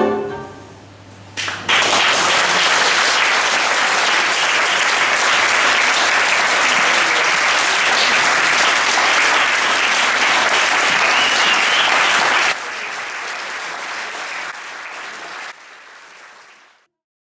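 The last note of the tango music dies away, then an audience applauds, clapping steadily from about two seconds in. The clapping drops in level twice near the end and fades out.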